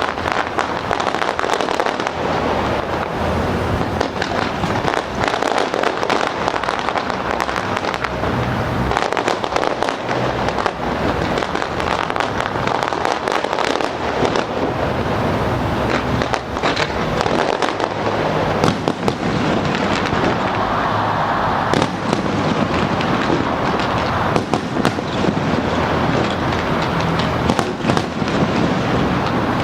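Aerial fireworks display: a continuous barrage of bangs and crackling bursts with no let-up.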